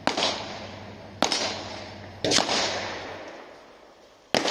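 Four rifle shots from an AR-15-style .223/5.56 competition rifle fired at targets downrange, each trailing off in a long echo. The first three come about a second apart, and the fourth follows after a pause of about two seconds near the end.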